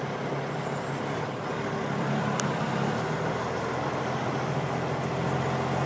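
Steady drone of a truck driving at highway speed, heard from inside the cab: a low engine hum over road and wind noise. One short click about two and a half seconds in.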